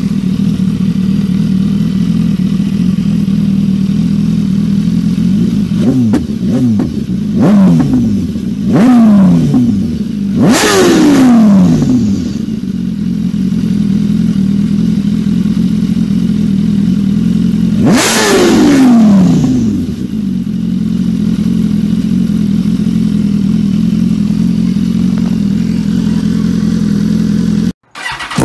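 BMW S 1000 RR inline-four engine breathing through a Yoshimura slip-on exhaust, idling steadily. About six seconds in the throttle is blipped several times in quick succession, then given a longer rev, and one more long rev comes near the middle; each falls straight back to idle.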